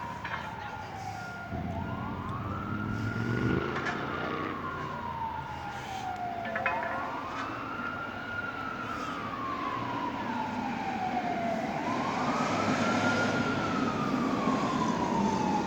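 Emergency vehicle siren wailing: its pitch sweeps up quickly, then slides down slowly, repeating about every five seconds, over a low steady rumble.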